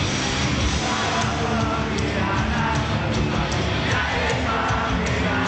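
Rock band playing live and loud, with steady drum hits and a voice singing over the band in the second half.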